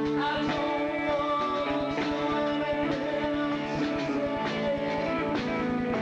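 Rock band playing live, electric guitar to the fore, over a steady beat.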